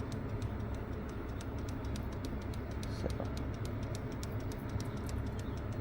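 Rooftop HVAC unit running with a steady low hum, with many quick, irregular light ticks over it.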